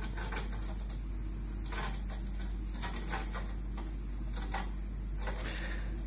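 Steady low hum from the running heating equipment in the plant cupboard, with a few faint ticks and rubs scattered through it.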